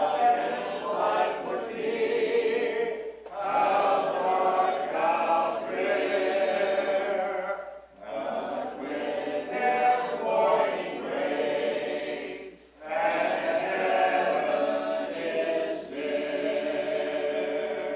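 Church congregation singing a hymn unaccompanied, many voices together in phrases of a few seconds each with short breaks between them.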